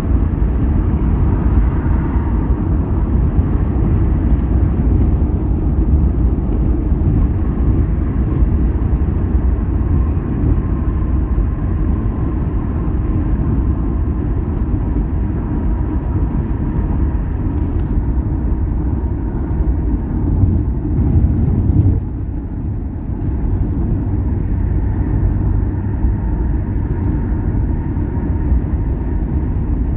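A car driving along a highway: a steady low rumble of engine and tyre noise, which dips briefly about two-thirds of the way through.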